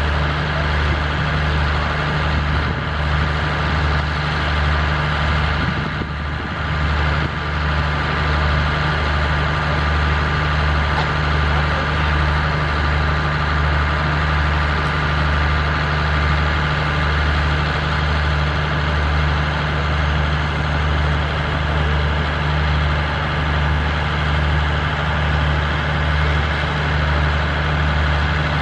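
Alsthom diesel-electric locomotive's diesel engine running at low power as the train rolls slowly in, a steady low throb with a few steady higher tones over it. The sound dips briefly about six seconds in.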